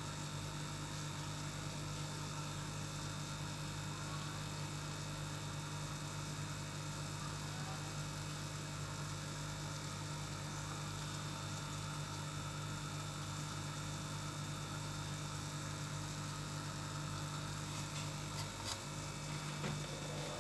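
Aquarium air pump humming steadily under a faint hiss, with a few faint clicks near the end.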